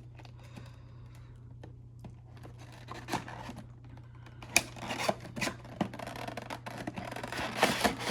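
Cardboard and packaging of a diecast model airplane box being handled and opened: irregular scraping and rustling with scattered clicks, busiest in the second half, over a steady low hum.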